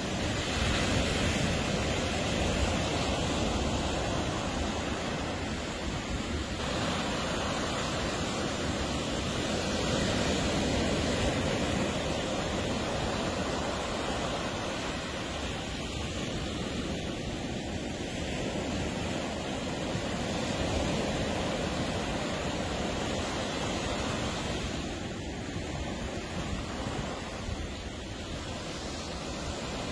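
Ocean surf washing onto a beach: a steady rush of waves that slowly rises and eases, with some wind on the microphone.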